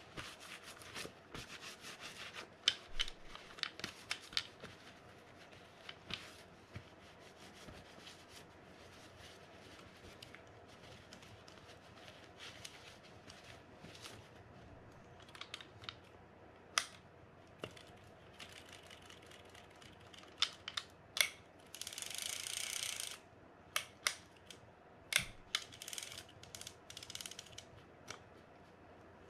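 Scattered clicks and light taps of small metal reel parts and tools being handled during hand work on a Penn Senator 113H fishing reel, with a brief denser rasping stretch a little past two-thirds of the way through.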